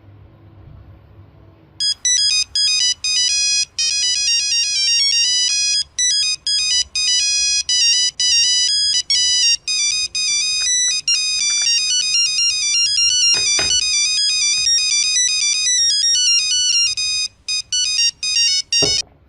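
An incoming-call phone ringtone: a bright electronic melody of quick notes that starts about two seconds in and plays with short breaks, stopping just before the end.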